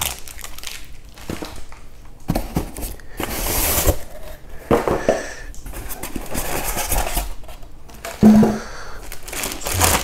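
Plastic packaging crinkling and rustling, with light irregular clicks and knocks of small plastic hose fittings and clips being handled and taken out of the box.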